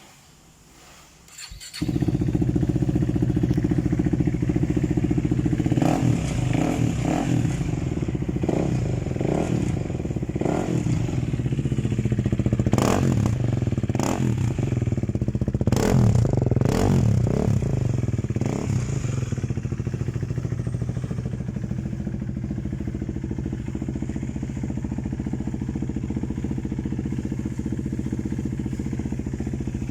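KTM Duke 250's single-cylinder four-stroke engine starting up about two seconds in and idling, then revved in a string of quick throttle blips through the middle before it settles back to a steady idle.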